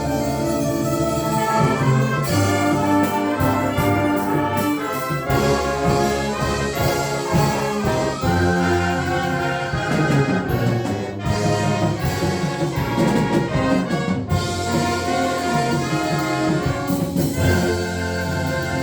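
Live concert band playing, with trumpets and trombones to the fore over a full low-brass line, the full ensemble sounding chords together.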